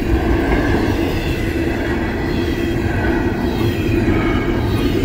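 Double-stack intermodal freight cars of a CSX train rolling past close by: a steady rumble and rattle of steel wheels on the rails.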